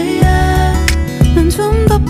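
Background pop music with a melody line over a steady bass beat.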